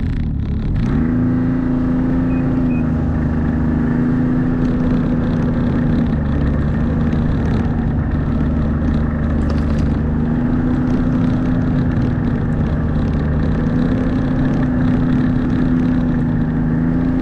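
Snowmobile engine pulling away, its note rising over the first second and then running steadily at travelling speed.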